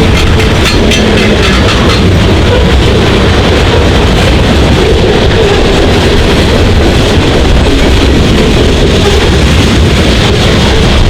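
A freight train rolling past, with a loud, steady noise of its wheels on the rails.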